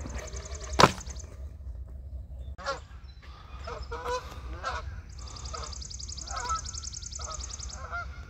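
A sharp smack of a stunt scooter landing on concrete about a second in, then geese honking again and again. A high, fast buzzing trill runs through the second half.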